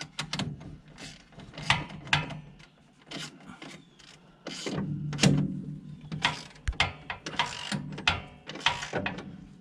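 Ratchet clicking in short, irregular spurts, with metal clinks, as the transmission mounting bolts are run in. A low steady hum sits under the second half.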